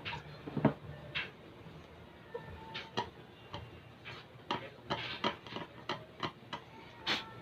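Irregular small clicks and taps of hard plastic and metal parts being handled while an LED bulb is taken apart and worked on by hand.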